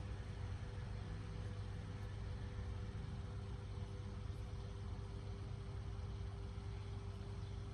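A steady low mechanical rumble with a faint, even hum above it, unchanging throughout, with no distinct clicks or knocks.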